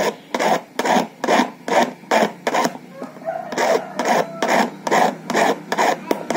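Small hand file rasping back and forth on a metal key blank, cutting a new key by hand, at about two strokes a second with a short break near the middle.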